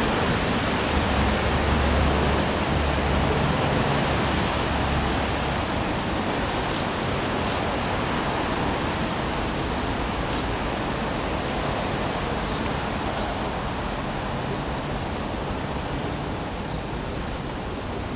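A train rumbling past through the station, its roar slowly fading as it draws away, with a low hum early on and a few short high squeaks from the wheels.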